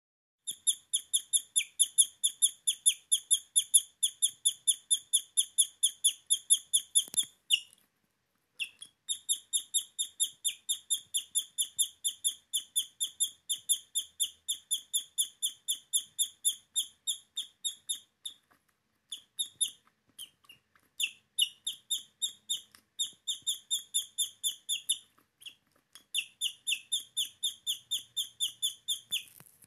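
Guinea pig squeaking in long runs of short, high-pitched squeaks, about five a second. There is a brief pause after about seven seconds, and the runs get shorter and more broken in the second half.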